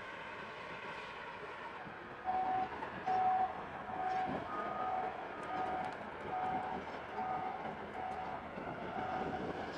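Steady outdoor rumble and noise. From about two seconds in, a short ringing signal tone repeats roughly every 0.7 seconds, sometimes joined by a second, higher tone.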